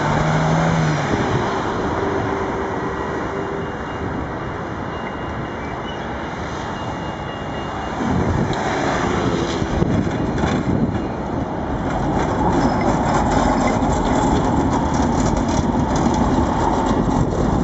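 Street traffic along a tram line: a moped rides past about eight seconds in, then a low-floor tram passes close by, its motors humming steadily.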